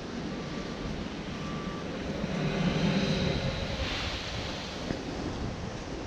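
Surf washing over the lava shelf at the Spouting Horn blowhole, swelling about two seconds in into a low rush of water and air forced up through the lava tube, peaking around three seconds and easing off.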